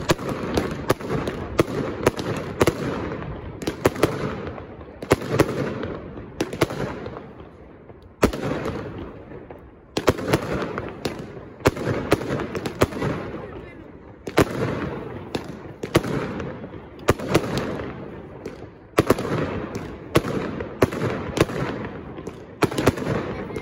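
Castillo aerial fireworks display by Pirotecnia Turis: shells bursting overhead in a rapid run of sharp bangs, about one to two a second, each followed by a rolling echo.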